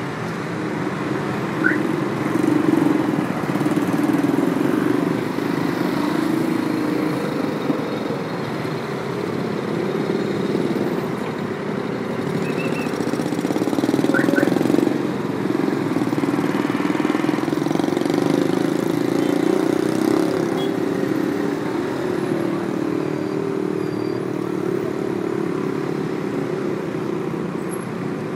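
Dense road traffic on a multi-lane city avenue: a continuous mix of car, van and motorcycle engines and tyres, swelling each time a nearer vehicle passes.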